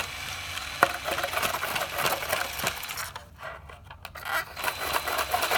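LEGO chainsaw prototype running, its motor driving the plastic chain in a fast clattering rattle as it cuts into styrofoam. The rattle drops away for about a second just past the midpoint, then starts again near the end.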